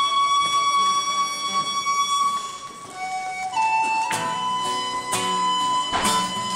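Tin whistle playing a melody in long held notes. About four seconds in, strummed acoustic guitar chords join it.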